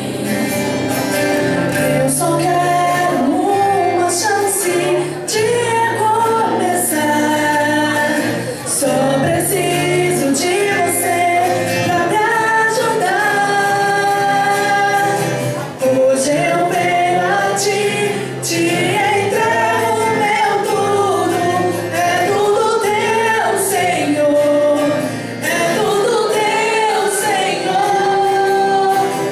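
Gospel-style Christian song: sung vocals holding and bending long melodic notes over steady instrumental backing.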